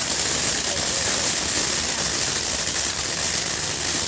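GLK Fireworks 'Charming Island' crackling fountain burning: a steady rushing hiss from the spark jet, dense with fast sputtering crackles from the bursting stars.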